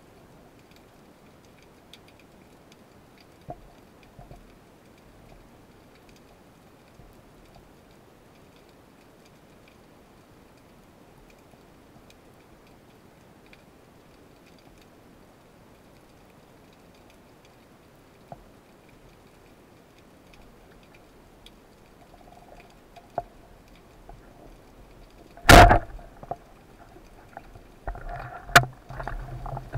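Band-powered speargun firing underwater, a single loud sharp crack near the end, followed by a sharp click and a flurry of knocks and rattles as the shaft strikes and the speared fish struggles. Before the shot there is only faint underwater hiss with a few scattered ticks.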